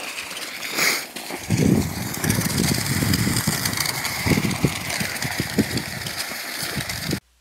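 Outdoor noise on a snowy walk: wind rumbling irregularly on the phone's microphone over a steady hiss, cutting off just before the end.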